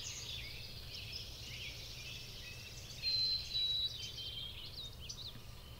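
Many birds chirping and calling in quick short notes, with one louder held high whistle about three seconds in, over a steady low rumble.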